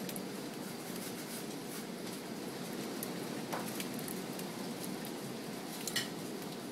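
Hail falling on a wooden deck: a steady, dense patter of small hits with a few sharper clicks, the loudest about six seconds in.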